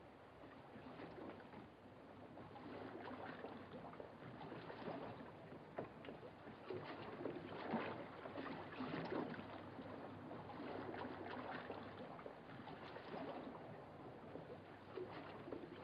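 Faint water lapping and sloshing at the shore, mixed with scattered small knocks and scuffs from footsteps on wooden stairs and sand.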